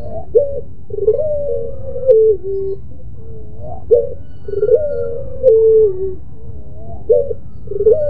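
Ringneck dove (puter) cooing in repeated phrases: a short rising note, then a long drawn-out coo that steps down in pitch, about three times. A steady low hum runs underneath.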